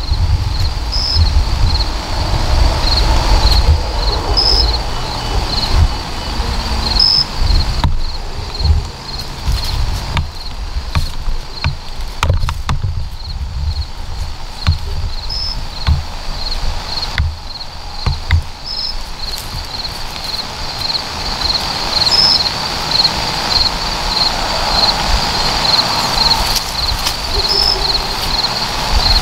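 Crickets chirping in a steady, rhythmic pulse, with an uneven low rumble underneath that is loudest in the first few seconds and again near the end.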